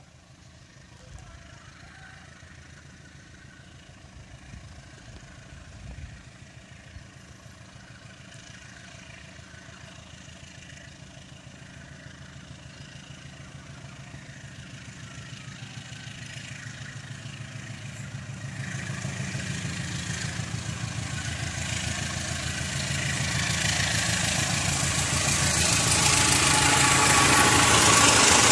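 Diesel locomotive hauling a passenger train draws closer with a steady low engine drone that grows louder throughout. In the second half a rushing noise of the train's wheels on the rails builds up and is loudest near the end as the coaches pass close by.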